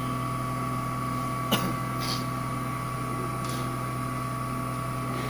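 CNC TU-3A training milling machine running, a steady hum with a high whine, and one sharp click about a second and a half in.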